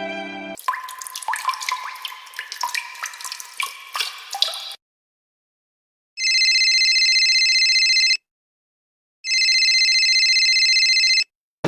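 Water dripping and splashing in a quick run of plinking drops for about four seconds. After a short silence, a telephone rings twice, each ring about two seconds of a fast trilling tone, with a pause of about a second between them.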